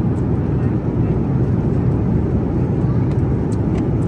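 Steady low roar of cabin noise inside a jet airliner in flight, with a few faint light clicks near the end.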